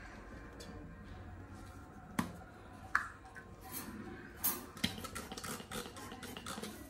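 Sharp plastic clicks of a foam-pump dry-shampoo bottle being pressed, four in all spread over a few seconds, with softer rustling of hands and foam that is busiest near the end.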